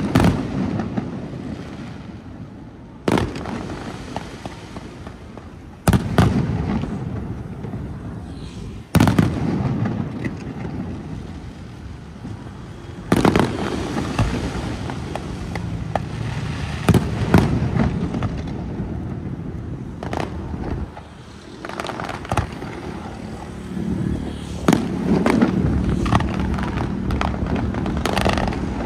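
Aerial firework shells bursting in a display: a series of sharp booms, each trailing off in a long echo, with crackling bursts in between.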